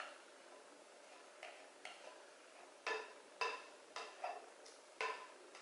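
Spatula scraping and tapping against the inside of a ceramic mixing bowl in short, faint strokes, scooping the last of a soft vegetable and ricotta filling out into a pie dish.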